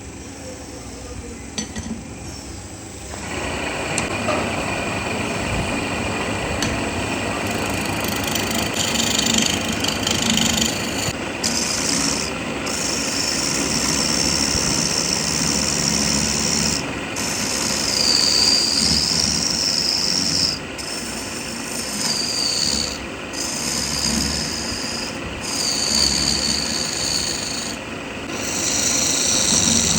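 Wood being worked with an abrasive tool: a steady grinding, rubbing noise that starts about three seconds in, breaks off briefly several times, and at times carries a wavering high whine.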